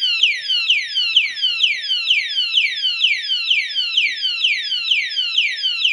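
Alarm padlock's built-in siren sounding continuously after the armed lock is knocked: a loud, rapid series of high falling whoops, about three a second.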